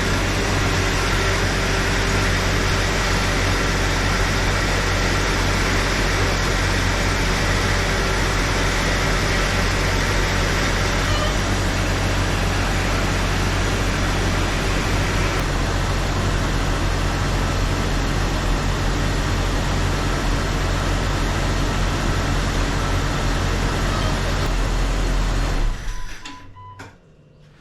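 Jeep Cherokee XJ engine idling steadily while the newly replaced power steering system is bled of air, then shut off suddenly near the end.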